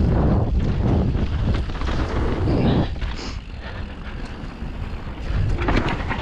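Wind rushing over the microphone of a helmet-mounted camera as a mountain bike descends a dirt and gravel trail at speed, with tyre crunch and bike rattle underneath. The rush eases about halfway through and builds again near the end.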